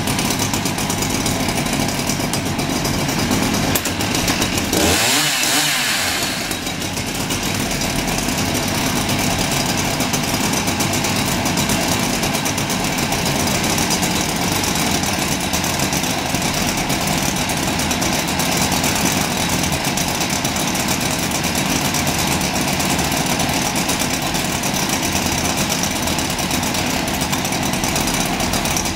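Husqvarna 365 XP two-stroke chainsaw engines idling steadily with the saws set down on the ground; about five seconds in, the engine sound briefly gets louder and its pitch dips and climbs again, like a short rev.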